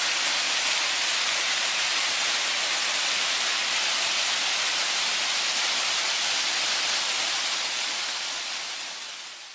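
Steady rushing of a mountain stream, an even hiss that fades out over the last two seconds or so.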